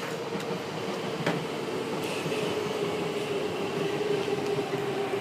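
Steady machine hum over a low rumble, its main tone sinking slowly in pitch, with a faint click about a second in.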